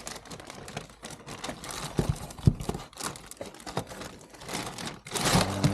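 Irregular clicks, knocks and rustles of cardboard box and packaging being handled while unpacking a 3D printer, with a sharper knock about halfway and a louder rustling swish near the end.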